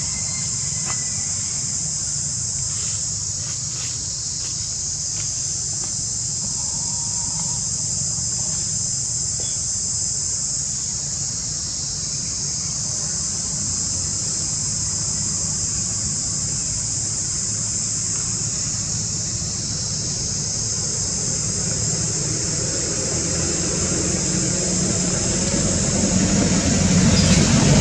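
Steady high-pitched insect drone, a continuous chorus of insects, over a low rumble that swells near the end.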